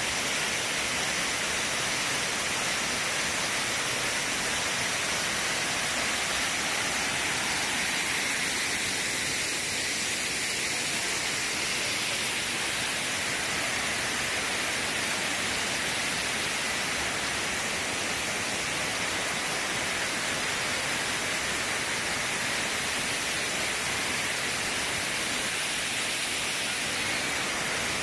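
Waterfall: a steady, dense rush of water pouring over rocks, unbroken and even in loudness.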